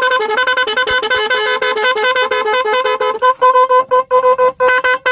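MOCC 18-tone digital electronic horn, powered from a 12-volt battery, running through its sound effects. It steps quickly between pitches, and a little after three seconds in it changes to a fast on-off beeping.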